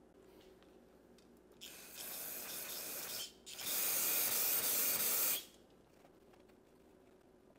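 Aerosol cleaner sprayed onto a cleaning cloth in two long hissing bursts of about a second and a half each, the second louder.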